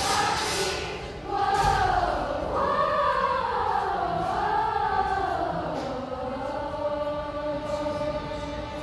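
Young voices of a school choir singing together, the melody moving for the first few seconds and then settling into a long held chord that fades near the end.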